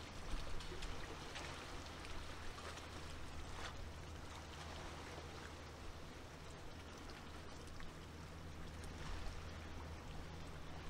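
Small waves lapping and splashing at the water's edge in irregular little splashes, over a steady low hum.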